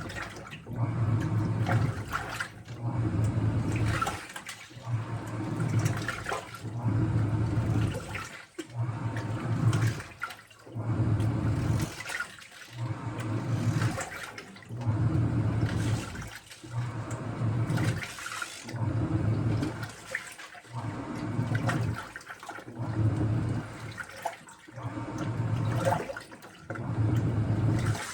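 Washing machine running its spin cycle: water and laundry swishing in the turning drum, in even surges about every two seconds.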